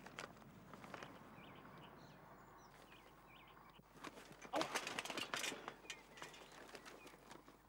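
A bicycle falls over onto paving stones, a second or so of metal clattering and knocking about four and a half seconds in.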